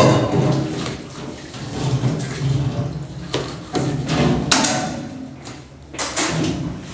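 Kitchen knife slicing a green bell pepper on a wooden cutting board, with two sharp knocks of the blade on the board in the second half.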